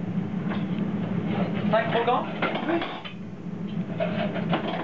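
Restaurant kitchen during service: plates, pans and cutlery clattering in short knocks over a steady low hum, with indistinct voices about two seconds in and again near the end.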